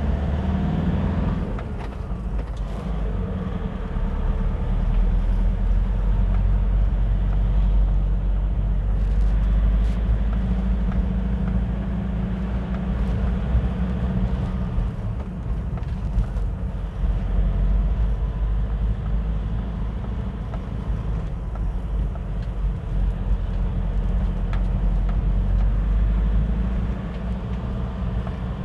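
Motor vehicle driving up a narrow, winding road: a steady low engine drone with road noise, its loudness swelling and easing as it goes.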